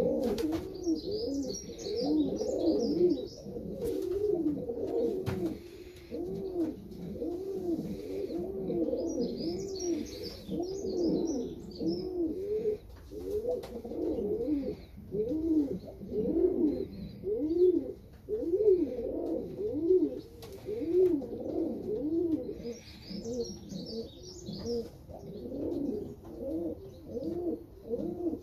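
Buchón rafeño pouter pigeons cooing over and over, each coo a low rising-and-falling note, repeated about once a second. Short spells of high chirping come and go a few times.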